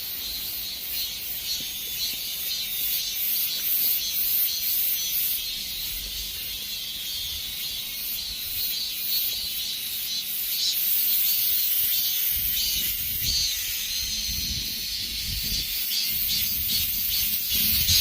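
Many cicadas buzzing together in a dense, high, pulsing chorus. A low rumble joins in during the second half.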